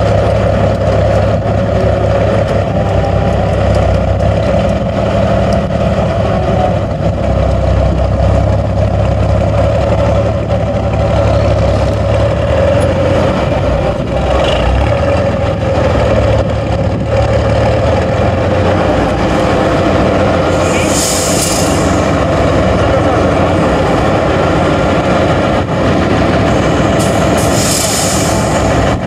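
Tatra 813 8x8 trial truck's air-cooled V12 diesel running under load as it crawls over sand mounds, its deep low note lightening about two-thirds of the way through. Two short hisses of released compressed air, from the air brakes, come near the end.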